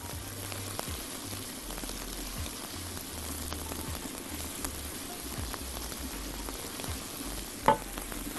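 Diced onions sizzling steadily in ghee in a frying pan while a silicone spatula stirs them; the onions are softening and wilting. One brief knock is heard near the end.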